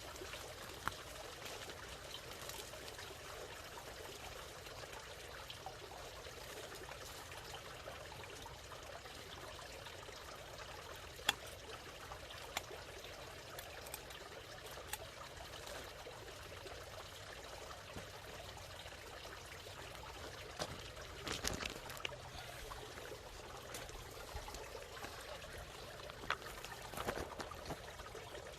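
Water bubbling and trickling steadily, with a few light knocks here and there over it.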